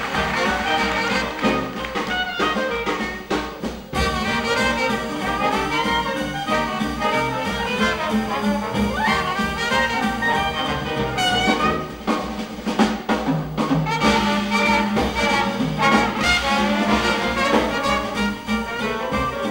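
Live Dixieland jazz band playing: trumpet and trombone blowing together over string bass and drums.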